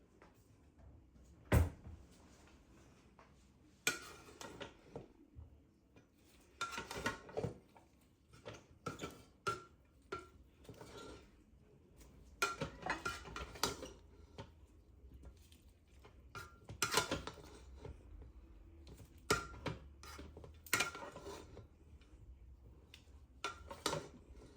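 Dishes, pans and cutlery clinking and knocking in irregular bursts, as crockery and utensils are handled and set down. A faint low hum comes in about halfway through.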